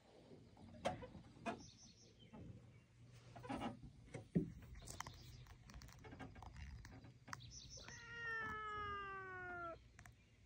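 Domestic cat giving one long meow of about two seconds, slowly falling in pitch, near the end. A few light clicks and knocks come before it.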